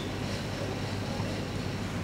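Steady room tone of a hall: an even hiss with a faint low hum.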